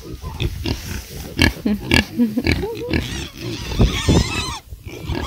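Pigs grunting and squealing as they feed, with many short, irregular grunts and a few rising squeals.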